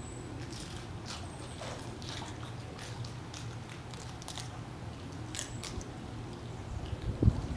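Sea otter crunching and chewing food, in scattered sharp crackles over a steady low hum. A loud low thump comes near the end.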